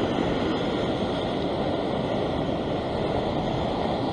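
Steady rush of ocean surf washing over a rock ledge, mixed with wind noise on the microphone.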